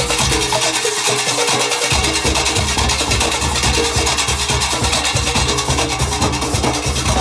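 Live street band music led by large skin-headed hand drums beaten in a fast, busy rhythm.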